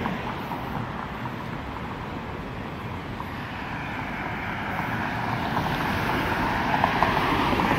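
City street traffic under wind buffeting the microphone. Tyre and engine noise from approaching cars grows louder in the second half.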